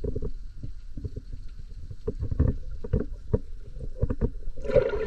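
Muffled underwater sound picked up through a camera's waterproof housing: irregular low thumps of water moving against the housing several times a second. There is a brief louder rush of water near the end.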